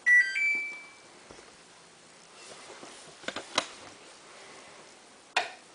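Samsung WF8804RPA washing machine's electronic power-on chime: a short beeping tune as it is switched on into its service cycle. A few faint clicks follow about three seconds in, and another near the end.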